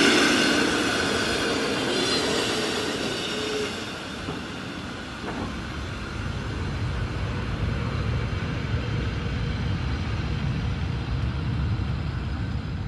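Rhaetian Railway passenger train rolling past on the track, the rush of its coaches' wheels loudest at first and fading over the first few seconds as the train draws away. A low rumble carries on after that.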